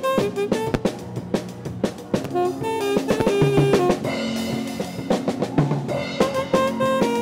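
A live band playing an upbeat tune: a drum kit keeping a busy beat under electric guitar and keyboard notes.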